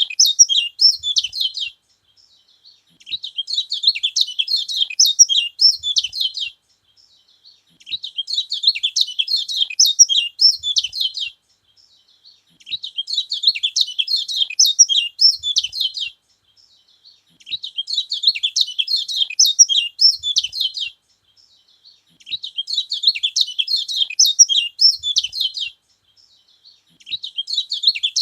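Kecial kuning (yellow white-eye) singing in regular bouts of rapid, high twittering. Each bout lasts about four seconds, with a pause of about a second and a half between them. This song is used to rouse and provoke other kecial birds.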